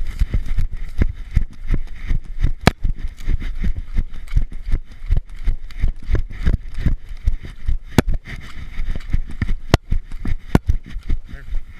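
Running footsteps with a body-worn action camera jolting at each stride: rapid heavy thumps and scattered sharp knocks.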